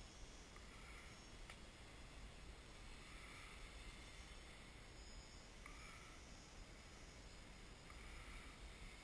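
Near silence: faint hiss, with the faint distant buzz of a hovering quadcopter's electric motors and propellers coming and going every second or two.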